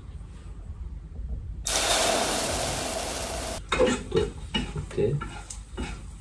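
Beaten egg mixture for dashimaki tamago hitting a hot oiled frying pan and sizzling loudly for about two seconds, cutting off suddenly. Before and after it come light taps and stirring of a utensil in the pan.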